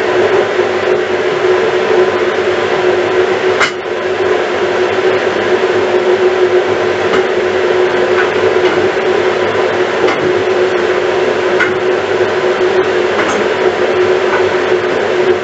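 Kitchen range hood fan running with a steady hum and an even airy rush, with a few light clicks and taps of spatulas against a frying pan.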